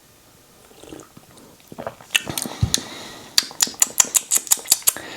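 Metal spoon stirring coffee in a mug, clinking against the sides: a few scattered clinks, then a quick even run of about five clinks a second.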